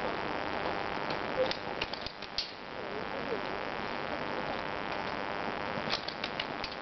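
Airsoft guns firing a few quick snapping shots, a cluster about a second and a half in and another near the end, over steady wind noise on the microphone, with faint distant voices.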